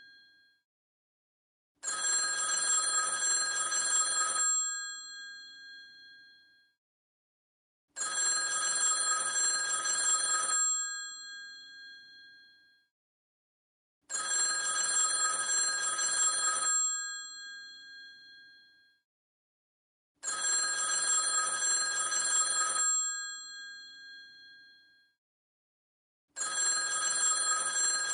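Old telephone's bell ringing in repeated long rings, each lasting about two and a half seconds and ringing out before a silent gap, starting again about every six seconds, five times.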